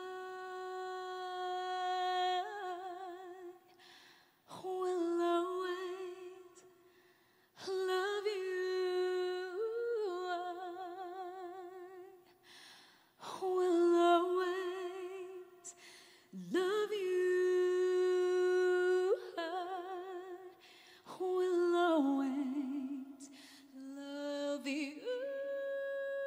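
A female singer vocalising wordless, unaccompanied phrases: long held notes with vibrato and quick melismatic runs, with short breaths between phrases. Near the end a sustained keyboard note comes in under her.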